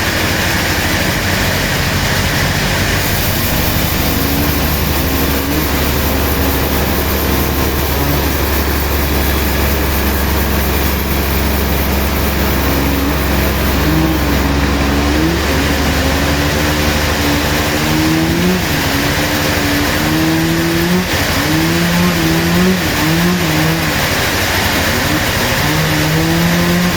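Sawmill machinery running steadily: a constant mechanical noise with a low hum, and an engine-like pitch that rises and falls repeatedly through the second half.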